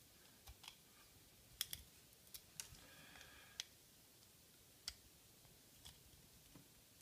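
Faint, scattered small clicks and taps from small screws and metal parts being handled while screws are undone, about a dozen over several seconds.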